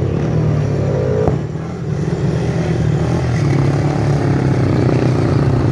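Speedway motorcycles' single-cylinder engines running at low throttle on the slow-down lap after the heat, the engine note rising briefly in about the first second, dipping for a moment, then settling into a steady drone.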